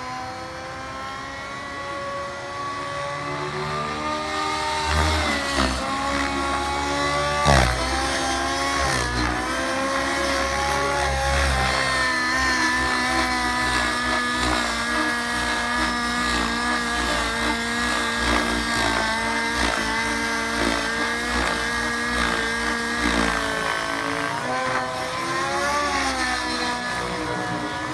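Nitro engine and rotors of a SAB Goblin 700 radio-controlled helicopter in flight, the engine speed held nearly constant by a governor, dipping briefly a few times under load. It grows louder over the first few seconds, with a short loud blip about seven and a half seconds in.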